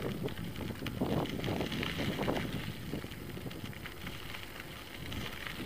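Wind buffeting the microphone of a camera carried on a moving bicycle, a low rumble that eases off somewhat in the second half.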